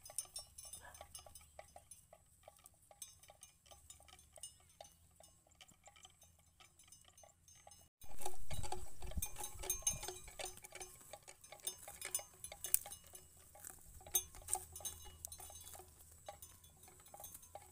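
Cattle grazing close by: repeated crisp clicks and crunches of dry grass being torn and chewed. A short low rumble about halfway through is the loudest moment.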